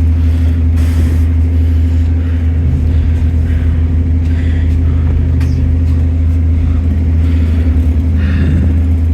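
Bus engine running with a loud, steady low drone and a constant hum above it, heard from on board the bus.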